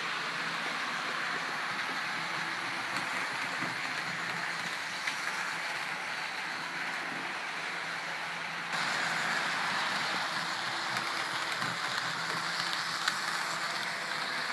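HO scale model ALCO PA-1 diesel locomotive and its passenger cars running on the layout's track: a steady whirring hiss of the small motor and wheels rolling on the rails, with a few faint clicks. It gets a little louder a little under nine seconds in.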